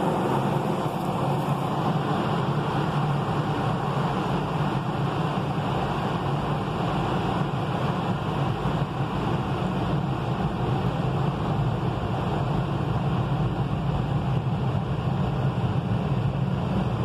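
Automatic car wash running over the car, heard from inside the cabin: a steady hum and hiss from the gantry's machinery and water spray, with no breaks or changes.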